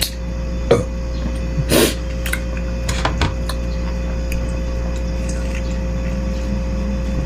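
Eating from a bowl of meatball soup: a few short clinks and knocks of a spoon against the bowl, with one longer, noisier sound about two seconds in, over a steady low hum.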